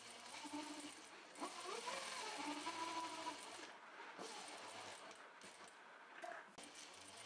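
Juki industrial sewing machine stitching through cotton fabric in short runs, its motor hum and rapid needle clatter stopping briefly a few times as the fabric is guided. A wavering tone rides over the loudest middle stretch.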